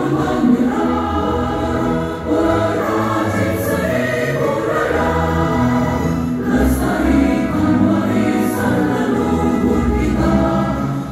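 Women's choir singing a march in Indonesian with piano accompaniment, steady and sustained throughout.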